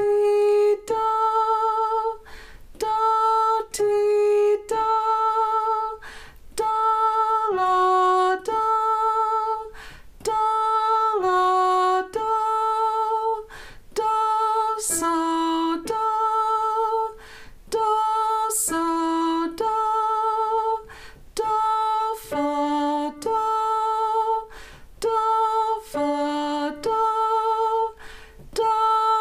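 A woman singing a solfege ear-training drill of descending intervals in A major: a held high do with vibrato, a drop to a lower scale degree, then back up to do. Each interval is sung twice, and the lower note steps further down the scale as the drill goes on.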